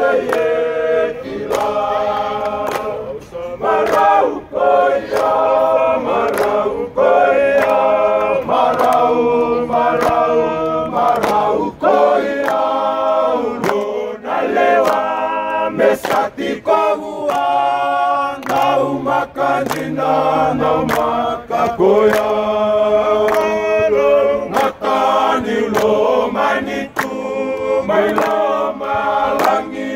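A team of men singing together unaccompanied in several-part harmony, a slow held choral song, with scattered claps.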